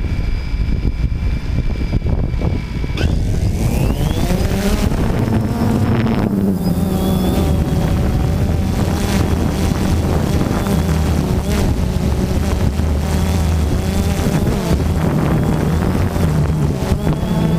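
DJI Phantom 2 quadcopter's motors and propellers, heard at close range from the camera it carries. About three seconds in, the motors spool up with a rising whine as it lifts off. A steady buzzing drone follows, its pitch wavering as the craft hovers.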